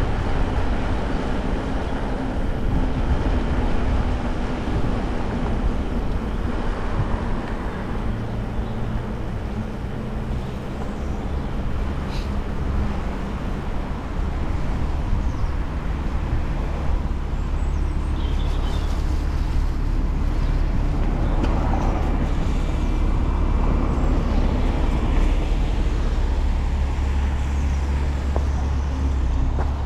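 Steady low rumble of wind on a chest-mounted camera and tyres as a mountain bike is ridden at speed on a road, with motor traffic going by.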